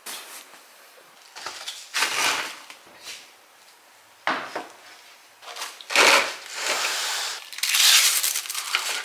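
Household handling noises: several short rustling and scraping bursts as things are picked up and moved. The loudest comes near the end, as the plastic lid of a yogurt tub is pulled off.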